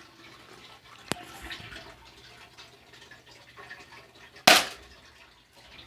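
Responder 911 toy BB gun firing once with a short, sharp pop about four and a half seconds in. A single fainter click comes about a second in.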